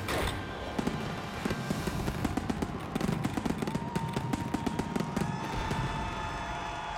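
Aerial fireworks shells bursting in a dense run of sharp bangs and crackles, one close on another, with music underneath.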